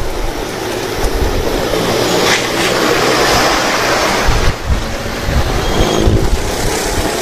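Wind rushing over the microphone of a moving motorcycle, with engine and road noise underneath, a steady loud rush with gusty low rumbles.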